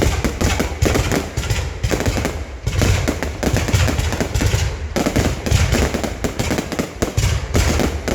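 Fireworks going off in a dense, continuous barrage of overlapping bangs and crackles, with heavy low booming underneath.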